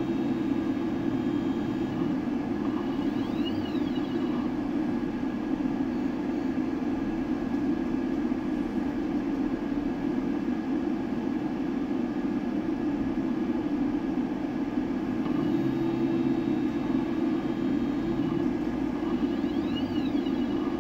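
Phrozen Shuffle resin 3D printer running mid-print: a steady fan hum, with a short high whine that rises and then falls twice, about sixteen seconds apart, as the Z-axis stepper motor lifts and lowers the build plate between layers.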